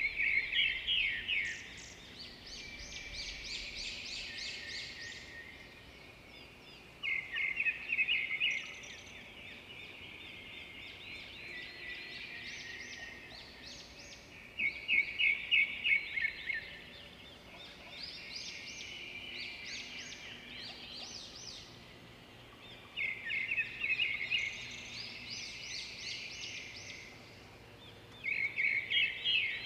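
A songbird singing repeated phrases, each opening with a loud rapid trill followed by a few seconds of quieter high chirps; five such phrases come several seconds apart.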